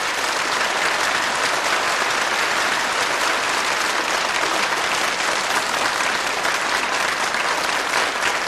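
Audience in a hall applauding steadily.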